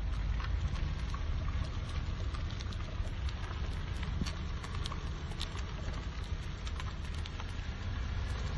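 A car rolling slowly along a street, heard from the open window: a steady low rumble of road and wind noise with many light ticks scattered through it.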